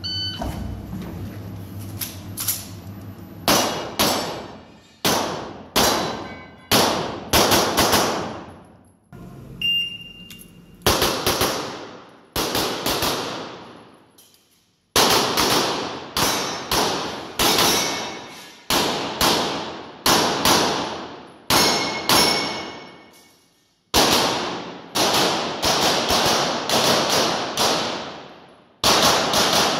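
Pistol shots fired in quick strings of two to five during a practical shooting stage, about thirty in all, each ringing out with a long echo off the hard walls of an indoor range. Brief pauses between strings come as the shooter moves to new positions.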